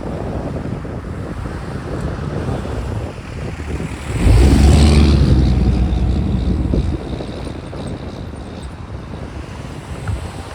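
Freight train rolling past with wind on the microphone; about four seconds in a diesel locomotive passes close, its engine drone loud for about three seconds before the rumble of the cars carries on.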